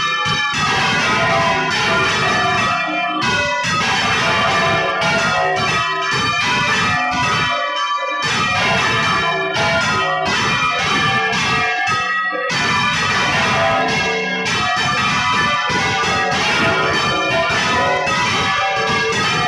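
Several large church bells swung full circle by hand with ropes, ringing together in a dense, continuous peal of overlapping strokes, heard up close inside the stone belfry.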